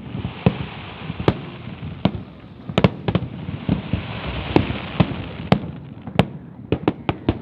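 Fireworks going off: sharp bangs every half second to a second, over a steady crackle and hiss, with a quicker run of bangs near the end.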